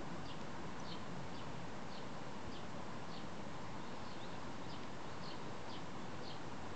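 Short high chirps, each dipping slightly in pitch, repeating about twice a second over a steady outdoor hiss.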